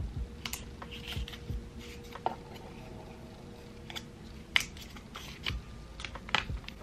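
Paper wrapping being peeled off a coiled braided charging cable: scattered crinkles and sharp little snaps and clicks of paper and cable being handled, the loudest about four and a half seconds in.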